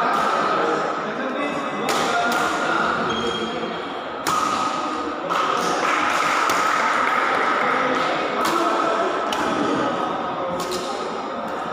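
Badminton rackets striking a shuttlecock during a rally: several sharp hits at irregular intervals, each echoing in the hall, over steady background chatter.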